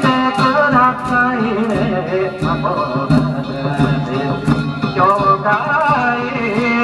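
Danjiri festival music: a melody with bending, wavering pitch over short, sharp strikes about twice a second.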